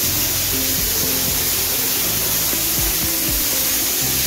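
Pressure-washer spray hissing steadily as a car's engine bay is washed, under background music.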